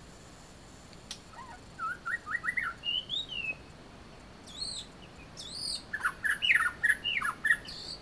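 Songbird singing a varied whistled song. A few quick rising notes and a slurred whistle come in the first half, then high arching notes, and near the end a fast run of short whistles, the loudest part.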